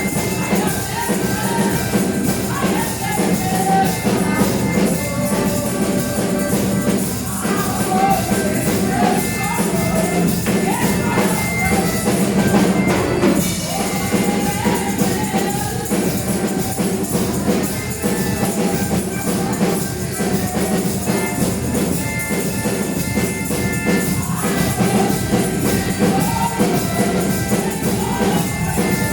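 Church praise music played steadily, with drums, tambourine and voices singing.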